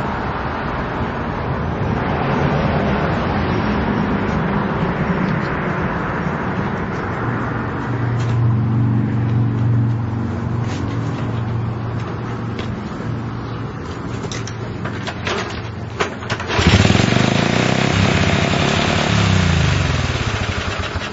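Honda CL70's small single-cylinder four-stroke engine running on a knockoff carburetor under test, getting louder about eight seconds in. It is revved up suddenly about two-thirds of the way through, and its pitch falls back near the end.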